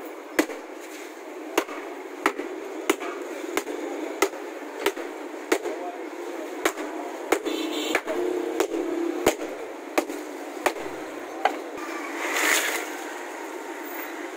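Ice in a heavy black bag being pounded with a wooden mallet on cardboard over pavement to crush it: a regular dull knock about every two-thirds of a second. A louder rush of noise comes near the end.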